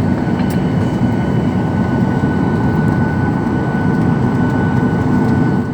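Steady cabin noise of a Boeing 737-800 taxiing after landing: a deep rumble from the CFM56 engines at idle, with a thin steady whine above it.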